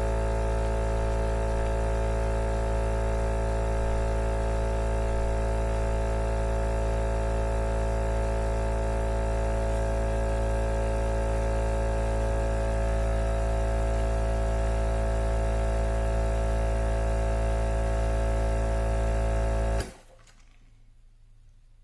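Steady electrical hum made of many fixed tones, strongest at the bottom, cutting off suddenly about twenty seconds in.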